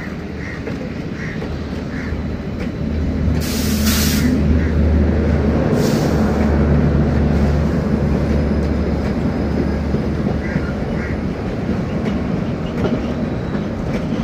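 Passenger train coaches rolling past close by on a steel truss rail bridge: a steady, heavy rumble of wheels on rail that grows louder a few seconds in. Two short hissing bursts come about four and six seconds in.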